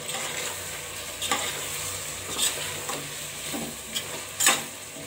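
A spoon stirring chicken and spice masala in a stainless steel pressure cooker pan over a steady frying sizzle. A few short scrapes of the spoon against the pan stand out, the loudest near the end.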